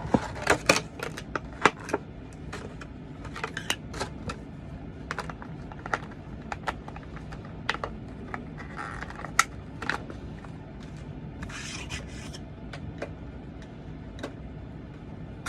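A cardboard Funko Pop box and its plastic insert being handled as a vinyl figure is packed back in: irregular light clicks, taps and scraping, with a couple of short rustles about nine and twelve seconds in.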